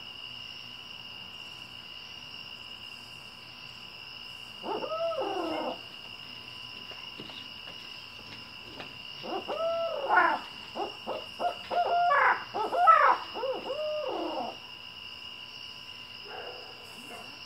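Owl hooting in rising-and-falling notes: one short call about five seconds in, then a longer, louder run of hoots from about nine to fourteen and a half seconds. A steady high shrill of night insects runs underneath.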